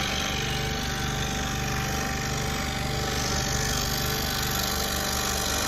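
Scroll saw running near top speed, its blade stroking rapidly up and down as it cuts through a thin wooden board, a steady even hum.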